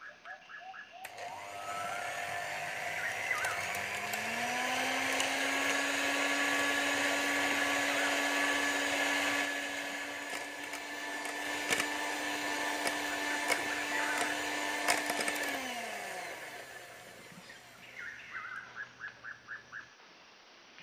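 Electric hand mixer whipping cream in a glass bowl. The motor speeds up to a steady whine, the beaters click a few times against the glass, then the motor winds down and stops.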